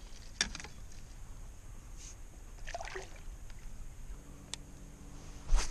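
Knocks and clatter of gear against a kayak hull, with light water trickling; a sharp knock near the end is the loudest sound. A low steady hum comes in a little past the middle.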